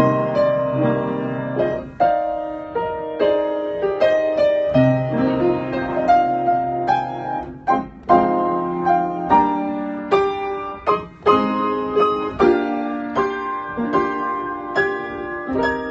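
Digital piano played with both hands: a continuous flow of chords and melody notes, with brief breaks about 8 and 11 seconds in.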